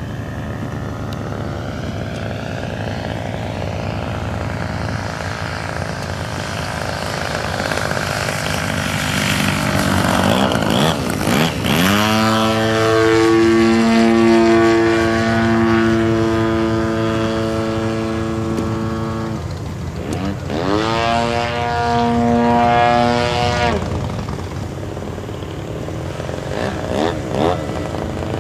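Radio-controlled model airplane flying overhead, its engine and propeller droning. Near the middle the note sweeps up and holds strong for several seconds, drops off, then swells again briefly before fading as throttle and distance change.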